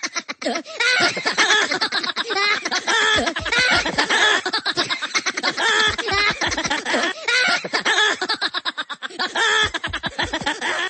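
A man's loud, wordless vocal outburst: rapid pulsing voice sounds, one burst after another with no clear words, and a few dull thumps in the middle.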